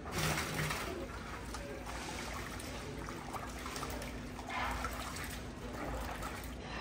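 Water poured from a steel pan into a big aluminium pot of tomatoes, then gloved hands sloshing and swishing the tomatoes around in the water to wash them, a little louder about four and a half seconds in.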